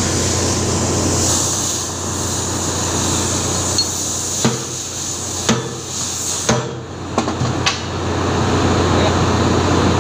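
Steel fuel-injector parts knocking and clacking several times as they are handled and set down on a wooden board, against a steady background hum of machinery.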